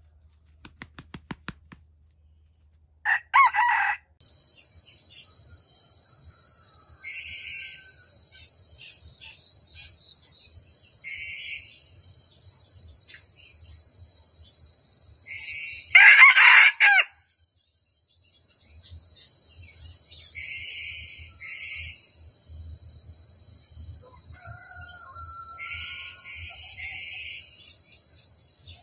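Red junglefowl rooster crowing twice, each a short crow about a second long, about 3 seconds in and again about 16 seconds in. Between and after the crows a steady high-pitched insect drone goes on.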